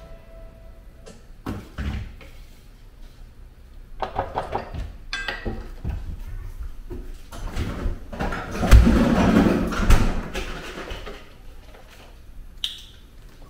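Kitchen handling noises: scattered knocks and clatters of dishes, lids and cupboard or drawer doors, with a louder, busier stretch of rattling and thuds about two thirds of the way through.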